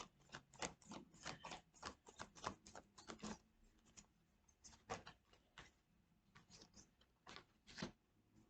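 Faint, irregular clicking and tapping of tarot cards being shuffled and handled, thick in the first few seconds and thinning out after.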